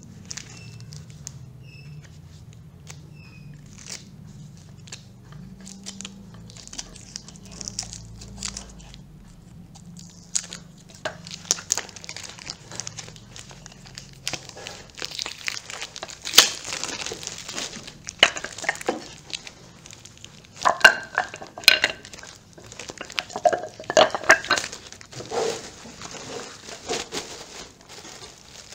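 Plastic wrapping around a new Eames-style chair being handled and pulled off: irregular crinkling and crackling. It is light at first and grows busier and louder from about ten seconds in, with several louder bursts.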